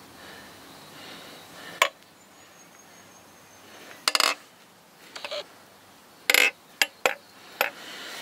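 Metal engine parts clinking and clattering as they are handled and set down during an engine teardown: a series of sharp, irregularly spaced metallic clinks, some with a short ring.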